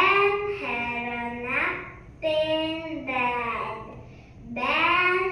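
A young girl's voice reading aloud in a slow, sing-song chant, each syllable drawn out with pitch gliding up and down.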